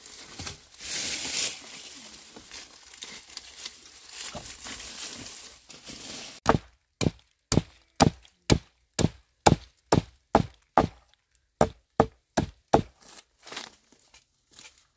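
Rustling and crinkling, then, from about six seconds in, a steady run of sharp chopping strokes on wood, about two a second, that trail off near the end.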